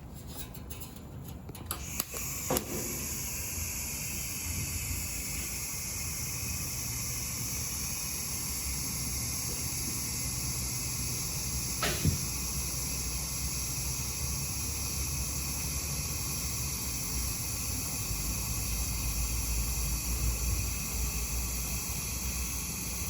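TIG welding arc on a thin steel door patch panel, set at about 50 amps: a few sharp clicks as the arc strikes about two seconds in, then a steady high hiss with a low hum as the short weld run is laid, with one more click near the middle.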